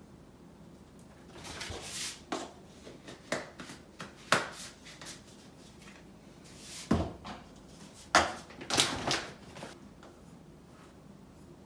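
Plastic supplement tubs and containers being handled while mixing powders for a workout drink: irregular clicks and knocks of lids and plastic, with short rustles. Near the end a resealable foil pouch of powder rustles.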